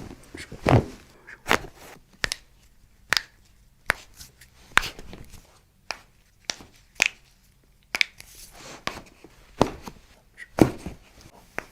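A series of sharp clicks and knocks, about a dozen, coming irregularly roughly once a second with short quiet gaps between them.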